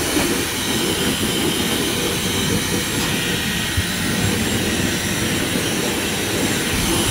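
Handheld hair dryer running steadily, blowing air over a small dog's wet fur.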